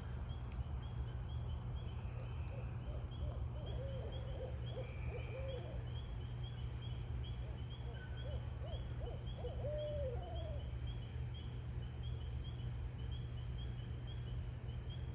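Owl calls: two wavering, quavering call series, one about four seconds in and another around nine seconds in, over a steady high chirping that repeats a few times a second.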